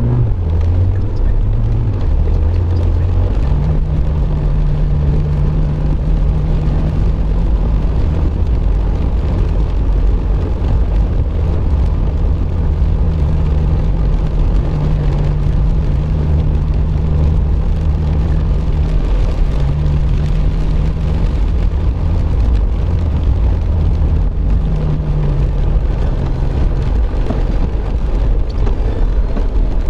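Car driving on a wet road in heavy rain, heard from inside the cabin: steady engine drone and tyre noise from the soaked road, with a low hum that comes and goes.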